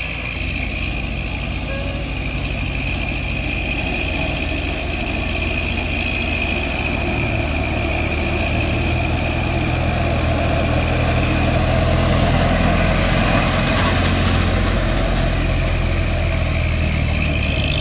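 Heavy diesel engine of earthmoving machinery running steadily at low revs, slowly growing louder toward the middle, with a steady high-pitched whine alongside.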